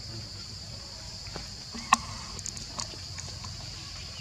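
Steady high-pitched insect chorus, with a few light clicks and one sharp click about two seconds in.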